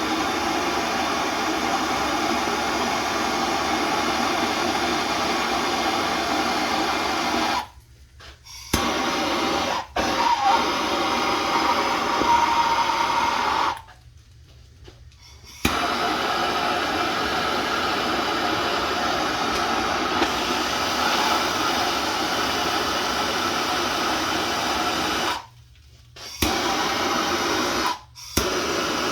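Gas soldering torch burning with a steady rushing hiss as copper pipe joints are heated for soldering. The sound breaks off sharply four times, and a faint whistle rides on it for a few seconds partway through.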